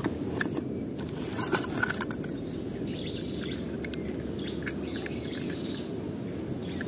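Outdoor ambience: a steady low rumble of background noise, with faint short bird chirps scattered through it.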